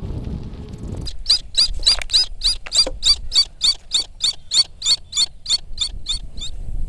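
An eagle calling close by: a rapid series of about twenty sharp, high-pitched notes, roughly three or four a second. They start about a second in and stop near the end. Before the calls there is a low rumble of wind or handling on the microphone.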